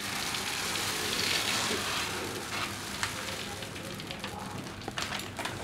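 Small polystyrene foam balls pouring and pattering into a model box in a dense rushing patter, which thins to scattered single ticks after about three and a half seconds as the pour ends.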